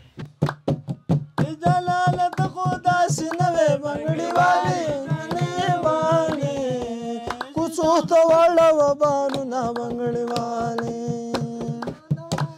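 A man singing a wavering folk melody over steady hand-drumming on a metal canister used as a drum. The singing comes in about a second and a half in and ends on a long held note just before the end.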